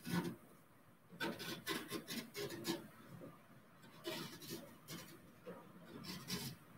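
Short scraping strokes of a hand gouge cutting into a carved printing block, coming in quick runs with brief pauses between.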